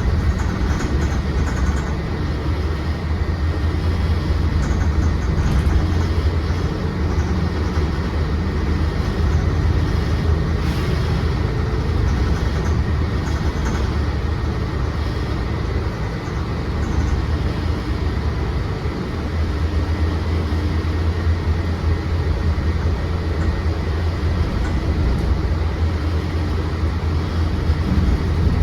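Cabin of a Mercedes-Benz Citaro C2 city bus under way: the engine and road make a steady low rumble, with a faint steady high whine above it.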